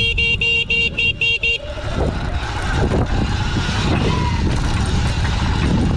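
A vehicle horn beeping about seven times in quick succession over the first second and a half, then steady rumbling wind and road noise.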